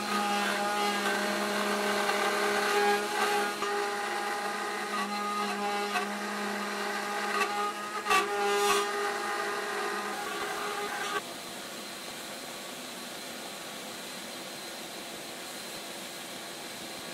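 CNC trim router milling purpleheart hardwood, its steady whine mixed with the steady noise of a dust-collection vacuum. There are a couple of sharp clicks about eight seconds in. About eleven seconds in the sound drops suddenly to a quieter steady running sound.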